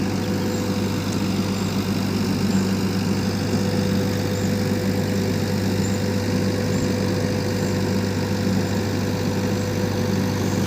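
Heavy earth-moving machine's diesel engine idling steadily, an even low hum.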